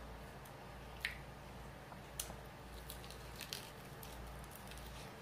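Close-up wet chewing and lip-smacking of someone eating a sauced chicken wing, with a scatter of sharp smacks, the loudest about a second in, over a faint low hum.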